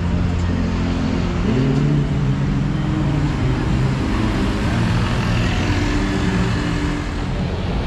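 City road traffic passing close by: engines of cars, a van and a truck running, with tyres hissing on the wet road surface.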